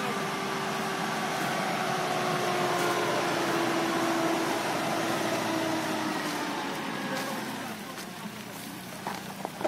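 Mazda B2500 pickup's engine running at low revs as the truck crawls past on a dirt trail, its steady note slowly falling in pitch and fading away after about seven seconds. A few light knocks near the end.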